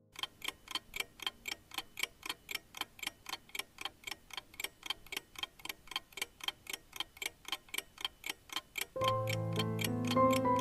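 Clock-ticking sound effect, about four even ticks a second, marking a countdown timer. About a second and a half before the end the ticking stops and a sustained chime-like musical tone comes in.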